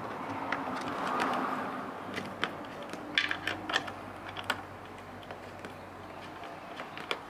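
Irregular small clicks and ticks of a T25 Torx bit turning out a screw from the plastic fog light housing.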